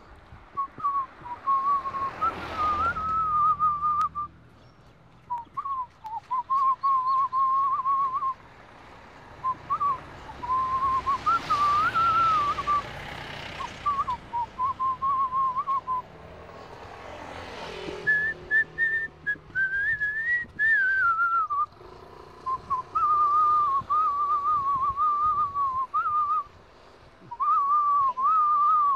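A person whistling a tune in wavering phrases with short pauses between them, climbing to a higher passage about two-thirds of the way through. A few swells of rushing background noise come and go behind it.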